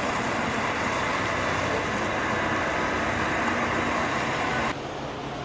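Street traffic noise as a car drives past, a steady rushing sound; near the end it cuts abruptly to a quieter, steady hiss.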